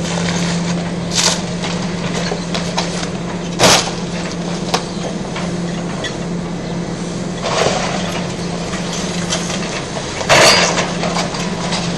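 Excavator's diesel engine running steadily while its demolition grapple breaks up the building's concrete and metal, with several sudden cracks and crunches. The loudest come about four seconds in and again about ten seconds in.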